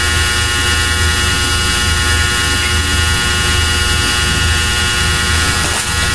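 Steady electrical hum and buzz with hiss, a low drone with many evenly spaced overtones, unchanging throughout.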